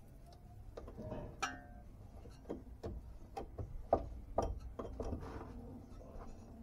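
Irregular metal clinks and knocks of tools and the suspension arm being handled while a Maruti 800 suspension arm is fitted; one clink about a second and a half in rings briefly.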